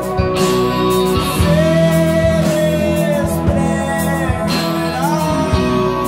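Live rock band music led by electric guitar, with sustained notes over a steady beat.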